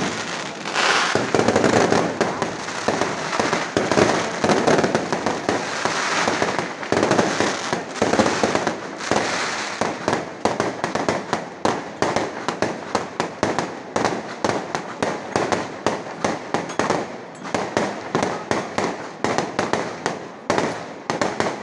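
Aerial fireworks display: a dense barrage of bangs and crackling. About halfway through it thins to a run of separate sharp pops, about three a second.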